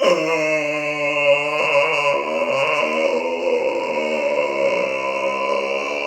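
A man's long, drawn-out burp, held as one unbroken pitched tone that starts abruptly, drops in pitch about one and a half seconds in and then wavers in small steps.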